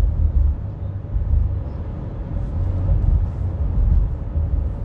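Road noise inside a car cruising on a highway: a steady low rumble of tyres and engine, rising and falling a little in strength.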